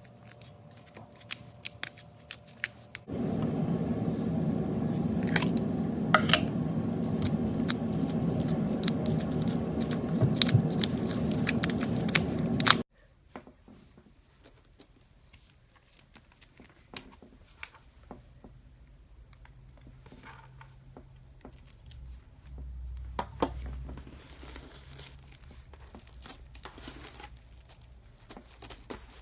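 Slime being squeezed and stretched by hand, giving a run of sticky clicks, pops and crackles. A louder, denser crackling stretch starts suddenly about three seconds in and cuts off sharply near thirteen seconds, after which the clicks are softer and sparser.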